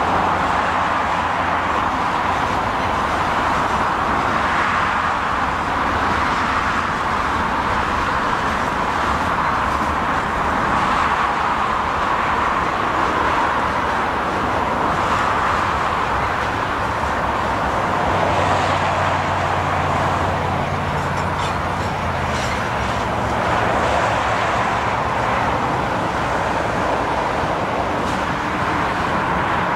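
Freight train of loaded ballast hopper cars rolling past: a steady rush of steel wheels on rail. A low engine hum joins for a few seconds past the middle.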